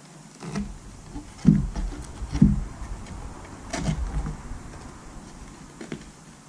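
Thin plywood panel handled on a workbench: several knocks and scrapes as it is shifted and set down, with screws clicking against it, the loudest knocks about a second and a half and two and a half seconds in.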